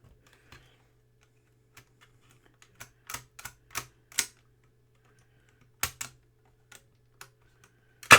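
Irregular sharp plastic clicks and clacks from a Commodore Datasette cassette deck's mechanism being handled, with a few grouped together and the loudest clack near the end. A faint steady low hum runs underneath.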